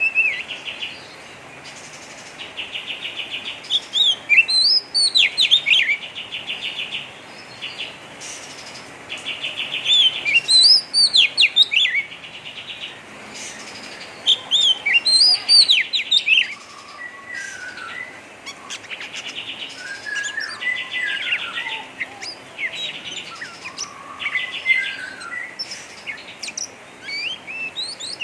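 Oriental magpie-robin (kacer) singing: harsh, rapid chattering trills ('ngeriwik'), each lasting about a second, alternating with loud sweeping whistled notes, phrase after phrase.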